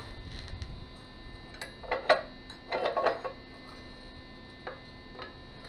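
Short metallic knocks and clinks of steel pieces being handled and set against an excavator quick coupler. The loudest come in a cluster about two seconds in and another around three seconds, with a few single ones later, over a faint steady hum.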